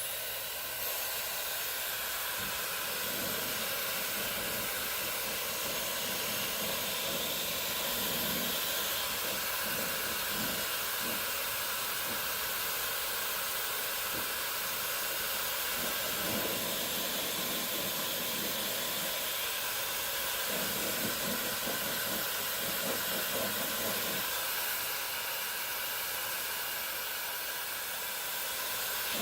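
Dyson Supersonic hair dryer blowing on its second speed setting: a steady rush of air with faint steady high tones, coming on abruptly at the outset and holding level throughout.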